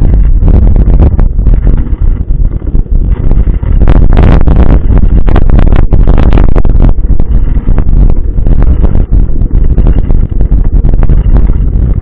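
Loud wind rumble on a moving action camera's microphone, mixed with tyre and road noise from a mountain bike rolling along a paved street, with bursts of rattle heaviest between about four and seven seconds in.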